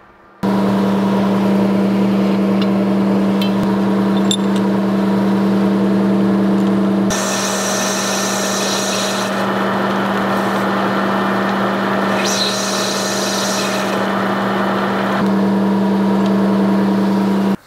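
Metal lathe running with a steady hum while turning steel parts. About seven seconds in it changes to a harsher, noisier cutting sound as the tool takes a cut, and the steady hum returns near the end.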